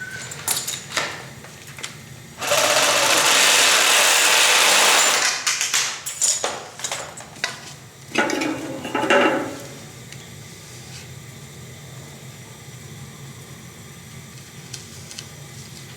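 A power tool runs in one loud burst of about three seconds, followed by scattered knocks and clatter and a second, shorter noisy burst.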